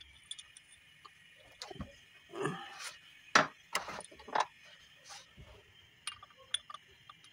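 Scattered metallic clinks and knocks of hand tools and parts on the valve train of a Hyundai H100's D4BB diesel cylinder head, around the rocker arms; the loudest is a sharp knock about three and a half seconds in.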